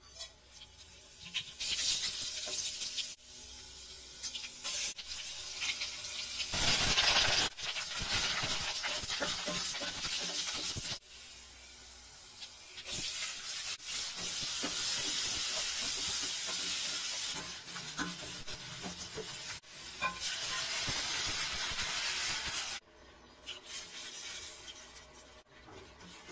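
Hot oil sizzling in a steel kadhai as cumin and mustard seeds splutter, then chopped onions frying with curry leaves while being stirred. The hiss comes in several loud stretches that start and stop abruptly, with scattered pops and clicks, and ends in quieter ladle stirring.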